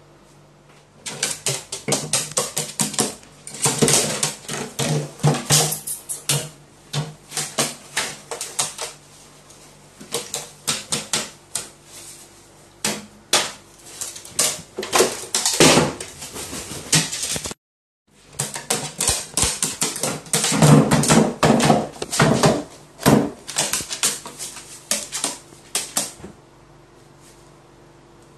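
Carrion crow pecking at and knocking about a metal drink can on a metal-sheeted tabletop: rapid, irregular clacks and knocks in two long spells with a brief break between them.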